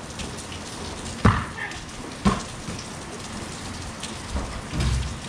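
Steady rain falling on an open concrete court, with two sharp knocks about a second apart from a basketball striking hard surfaces, and a dull low thud near the end.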